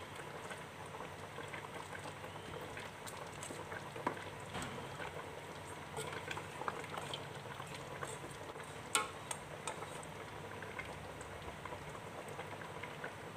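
Coconut-milk chicken curry simmering in a stainless steel pot, bubbling steadily, while a ladle stirs it slowly to keep the coconut milk from splitting, with scattered small clicks and knocks of the ladle against the pot.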